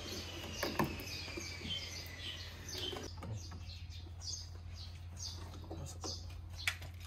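Birds chirping: many short, high, falling notes repeated over and over, with one longer falling whistle in the first two seconds. Two sharp clicks, the louder near the end, over a steady low hum.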